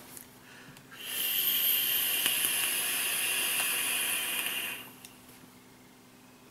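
Mutation X rebuildable dripping atomiser with a 0.5-ohm coil at 35 watts, fired during a drag. It gives a steady hiss of air drawn through the partly closed airflow over the firing coil, lasting about four seconds and stopping abruptly.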